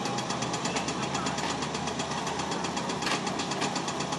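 Classic scooter's two-stroke engine idling with a rapid, even pulse, over background voices.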